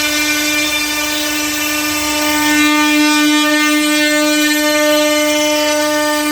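CNC router spindle running at a steady high whine with a constant pitch, cutting wooden bag handles.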